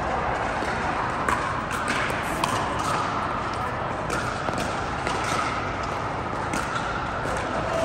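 Pickleball rally: a series of sharp pops as the hard plastic ball is struck by paddles and bounces on the court, over a steady background hum with faint voices.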